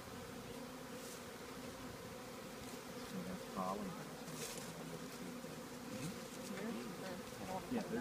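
Honeybees buzzing in a steady hum around an open hive box being stocked from a package of bees.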